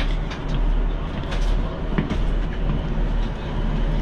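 Diesel passenger train standing at a platform, its engine idling with a steady deep hum, heard from inside the carriage. Scattered small clicks and knocks, with a sharper knock about two seconds in.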